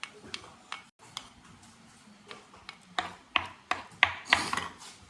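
Irregular sharp clicks and taps of a spoon against a dish, a few at first, then quicker and louder from about three seconds in.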